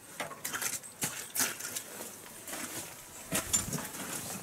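Wrenches and hand tools clinking and knocking against the steel mounting bracket of a snow plow as it is bolted up, in irregular sharp clicks, a few with a brief metallic ring.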